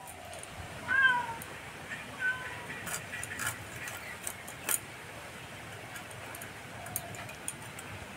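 A cat meowing, one loud call about a second in and a shorter one a moment later, followed by a few scattered sharp clicks of fish scales being scraped against a boti blade.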